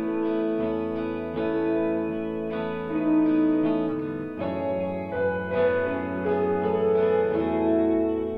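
Slow background music played on guitar, with held notes and a new note or chord about every second.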